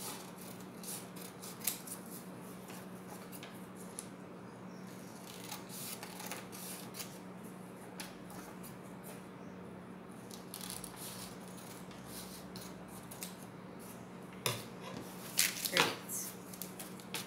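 Scissors snipping through folded construction paper in a run of short cuts. Near the end come a few louder knocks and rustles as the scissors are set down on a wooden table and the cut paper is handled.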